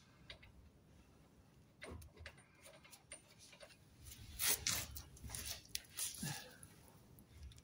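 Faint metallic clicks and scrapes of a washer and nut being put onto the lower shock absorber bolt and started by hand, with a cluster of louder rattles and handling noises about four to six seconds in.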